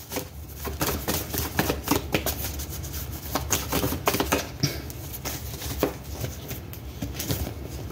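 Tarot deck being shuffled by hand, a rapid run of soft card flicks and taps.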